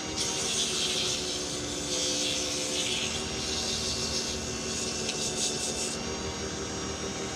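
150-grit sandpaper rasping against a pen blank spinning on a wood lathe, over the steady hum of the lathe motor; the sanding stops about six seconds in, leaving the lathe running.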